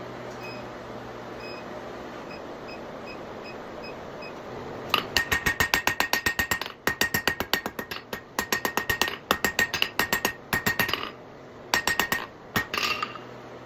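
Hammer blows on an anvil drawing out a taper on hot 3/8-inch round steel bar, in quick runs of about six strikes a second, the anvil ringing with each blow. Before the hammering starts there are about five seconds of steady low hum.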